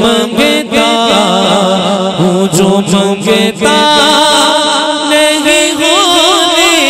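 A man singing a naat (Urdu devotional song) into a microphone through a sound system. He draws out long, ornamented notes, the pitch wavering up and down.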